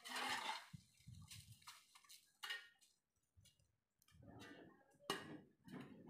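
Faint, scattered scrapes and rustles: a metal shovel scraping on concrete and dry leaves being scooped up and dropped into a plastic bucket, with short clattery knocks in between.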